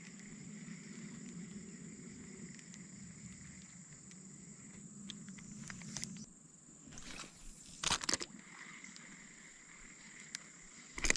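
Quiet creekside ambience with a steady, high, thin insect drone, and brief rustling and clattering noises about seven to eight seconds in.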